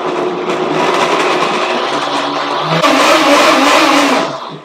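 Countertop blender motor running, blending kale, celery, banana, seeds and blueberries with liquid into a smoothie. Partway through it steps up to a higher, louder speed, then winds down and stops near the end.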